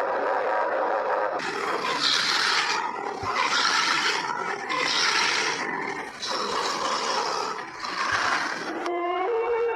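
Reconstructed dinosaur call: a low, droning tone with a steady pitch, then a string of harsh, hissing roars, each under a second long, and a higher, wavering tonal call starting near the end.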